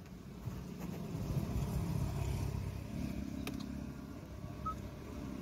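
A motorcycle engine passing close by on the road, its rumble swelling and then easing off. A single sharp click about three and a half seconds in.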